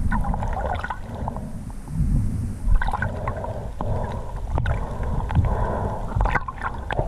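Sea water sloshing and gurgling against a waterproof action camera at the surface, over a heavy, uneven low rumble of water and wind buffeting, with a few sharp knocks.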